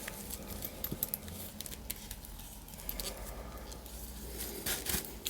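Faint rustling and scattered light clicks of wrapping being handled as a wrapped package is opened.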